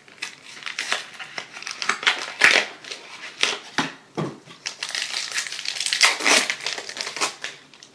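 Foil booster-pack wrapper of a Pokémon trading card pack crinkling and rustling in uneven bursts as it is torn open and handled, loudest about two and a half and six seconds in.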